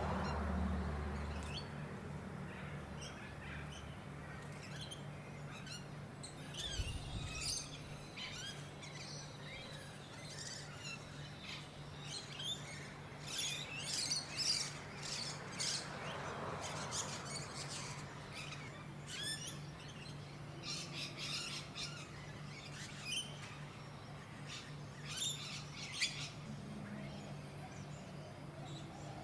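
Birds chirping outdoors: many short, high chirps and calls scattered throughout, thickest around the middle, over a steady low hum, with a broad rushing swell about halfway through.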